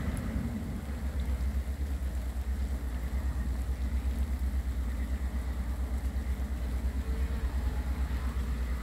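Plough dredger Fastnet Sound's diesel engine heard across the water as a low, steady, rhythmic throb while it tows its plough through the channel.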